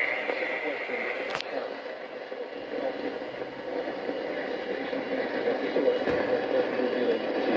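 Radio broadcast reception: steady hiss and static with a faint, unintelligible voice underneath. Two sharp clicks, one about a second and a half in and another about six seconds in.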